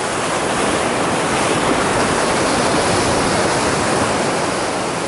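Sea surf breaking and washing over coastal rocks: a steady, loud rush of white water that swells a little midway.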